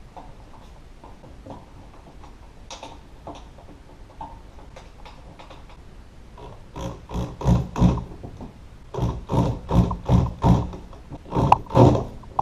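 Faint clicks of parts being handled, then a power screwdriver driving the door latch screws in three runs of short, stuttering bursts, starting about seven seconds in.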